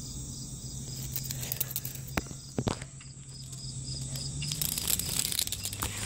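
Insects chirping with a steady, evenly pulsing high note. There are a few sharp clicks about two seconds in and a burst of scratchy noise near five seconds in.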